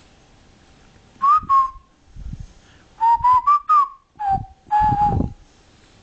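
A whistled tune of short, clear notes in three phrases: two notes about a second in, a quick run of four or five notes around three seconds in, and a lower, longer pair near five seconds.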